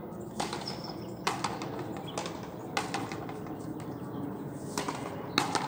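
Frontenis rally: the rubber ball is struck by strung rackets and smacks against the frontón wall and floor. It makes a run of about seven sharp cracks, with a gap of about two seconds in the middle.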